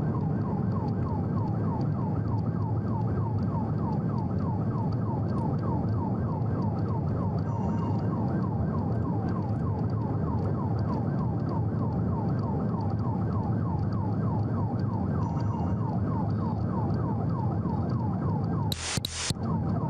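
Police car siren in a fast yelp, each sweep falling in pitch, about three a second, over steady road and engine noise. A brief loud burst of noise cuts in near the end.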